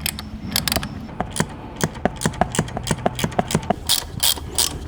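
Rapid ratchet clicking, about five clicks a second, as a 3/8-16 tap is turned by hand to cut threads in an engine mount hole. Sharper, louder clicks come near the end.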